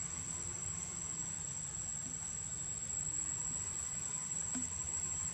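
Insect chorus in the forest: a steady high-pitched whine, unbroken, over a low rumble.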